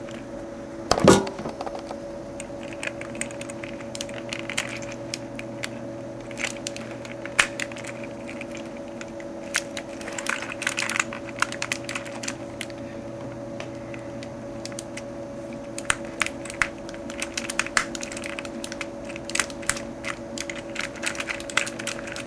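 Scattered light clicks and taps of tools working on a keyboard's circuit board while an Alps key switch is desoldered, with one louder snap about a second in, over a steady hum.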